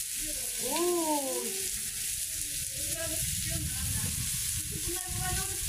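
Chicken pieces sizzling steadily on a hot saç, a domed steel griddle, as they grill.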